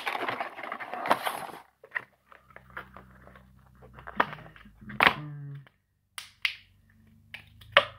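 Clear plastic blister packaging being handled and pried open by hand: crinkling for the first second and a half, then a string of sharp plastic clicks and snaps, the loudest about five seconds in.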